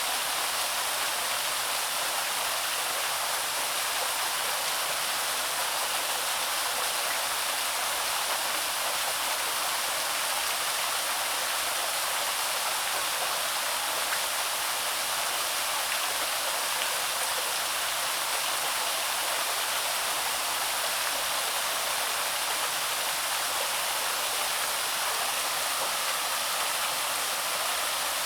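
Water pouring over the Loch waterfall, a small woodland waterfall: a steady, even rush of splashing water, hissy and with little low rumble.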